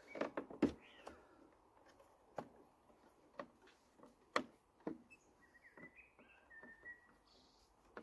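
Faint, irregular clicks and taps of a screwdriver working the screws of a Briggs & Stratton Quantum XTL 50 engine's plastic top cover as it is screwed down. A bird chirps briefly just after the start and several times again in the second half.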